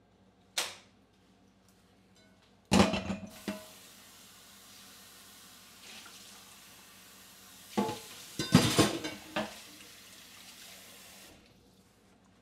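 Dishes clattering while water runs: a single clink, then loud clatters as a steady rush of water starts, more clatters about eight to nine seconds in, and the water cuts off shortly before the end.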